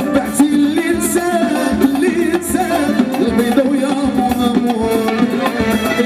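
Live band music from a stage PA: drum kit, electric guitar and keyboards playing a steady beat, with a man singing.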